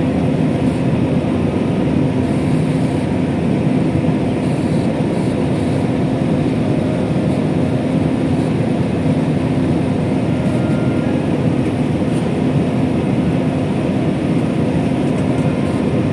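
Steady cabin roar inside a Boeing 737 descending on approach to land: jet engines and airflow heard from a window seat beside the engine, a low, even noise with a steady hum running through it.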